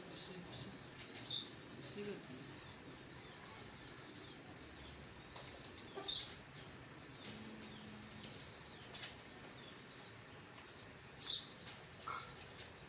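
Faint outdoor background of small birds chirping: short, high chirps scattered every second or so.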